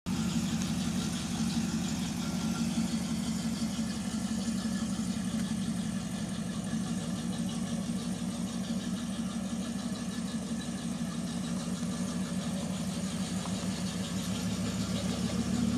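Steady low groan, which the owner takes to come from the car's GM 10-bolt rear differential with a new Eaton posi and 3.73 gears, heard from inside the cabin together with engine and road noise. The cause of the groan is unknown. It swells slightly near the end.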